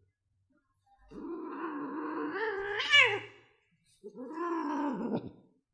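A cat giving two long, drawn-out meows. The first wavers and then swoops up loud near its end, and the second is shorter and rises and falls.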